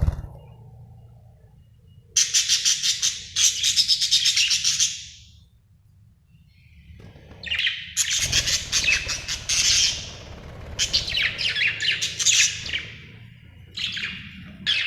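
A happy budgerigar chirping and chattering in fast runs of short, high notes, in three bouts: about two to five seconds in, from about seven and a half to thirteen seconds, and again near the end, with pauses between.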